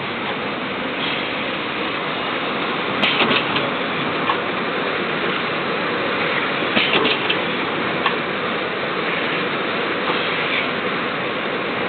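Side seal packaging machine running: a steady mechanical clatter of conveyor and film feed, with short clusters of sharp clicks about three seconds in and again near seven seconds as the machine cycles.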